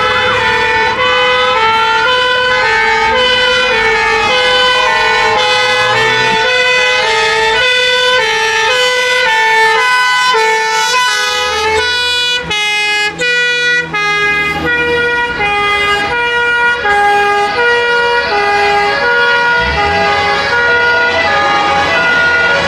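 Several fire engine two-tone sirens sounding at once, their hi-lo notes overlapping, with a wailing siren rising and falling in the first few seconds and a faster alternation about halfway through. Truck engines rumble underneath as the fire engines pass close by.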